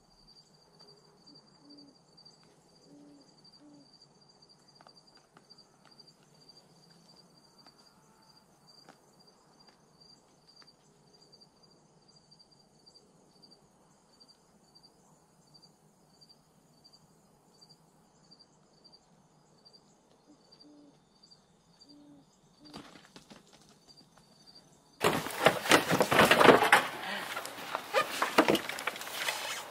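Faint insect chirping, evenly pulsed at about two to three chirps a second, over a quiet evening background. About 25 seconds in, it is cut off by loud rustling and handling noise close to the microphone.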